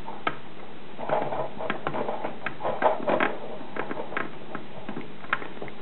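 Vacuum hose being worked onto the barb fitting of a plastic three-way stopcock: scattered light clicks and short bouts of rubbing as the plastic parts are handled.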